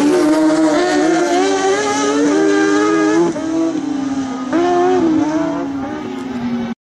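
Kartcross buggies' high-revving motorcycle engines racing through a dirt-track bend, the engine note climbing and dropping in steps as they shift and ease off. The sound dips a little past halfway and fades slightly toward the end.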